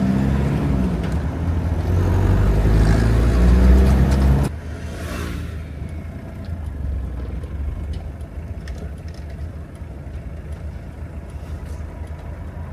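Toyota Hilux engine pulling through the gears in town traffic, its pitch rising and falling over the first four seconds or so. About four and a half seconds in it drops abruptly to a quieter, steady engine and road noise.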